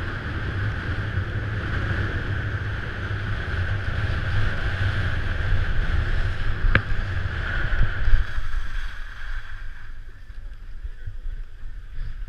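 Wind rushing over a helmet-mounted action camera and skis hissing over packed snow at speed, with a sharp click about seven seconds in. The noise dies down about eight and a half seconds in as the skier slows to a stop.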